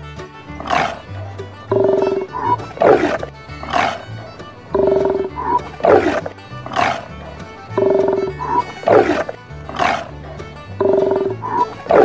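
Sea lion barking: a run of loud, hoarse barks that repeats about every three seconds, four times over, with background music underneath.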